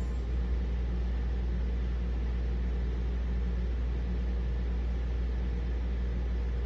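Steady low hum with a faint hiss over it: constant background room noise.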